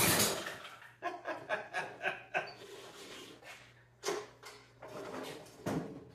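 A 1968 Toro Snow Hound 20 snowblower engine cutting out, its sound dying away over about a second, followed by a man chuckling in short bursts.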